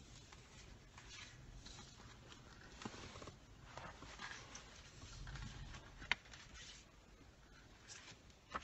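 Faint rustling and small clicks of photo prints being shuffled and handled, over a low rumble of road noise in the car cabin, with one sharp click about six seconds in.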